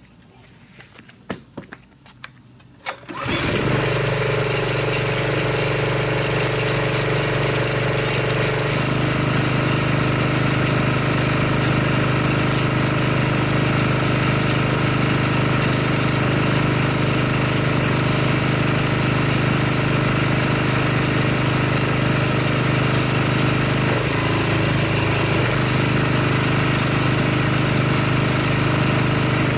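Pressure washer driving an MTM foam cannon that sprays thick car-wash foam. A few light clicks, then about three seconds in the pump starts with a steady drone and the hiss of the foam spray, running on without a break.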